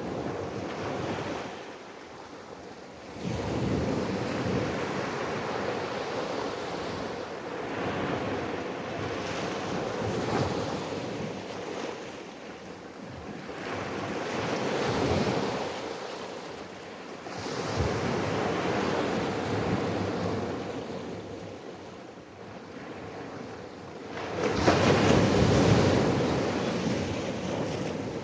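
Ocean waves breaking and washing ashore in repeated surges every few seconds, the loudest one near the end.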